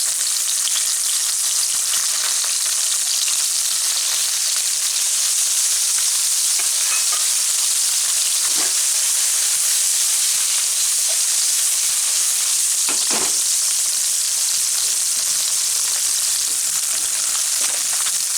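Small puti fish (pool barb), coated in salt and turmeric, frying in hot mustard oil in a pan: a steady high sizzle, with two short knocks from the pan partway through.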